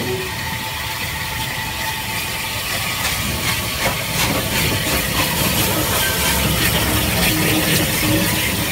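Bulleid Battle of Britain class steam locomotive 34081 passing slowly close by, steam hissing steadily and getting louder after about three seconds, with a few clanks from the running gear and rails.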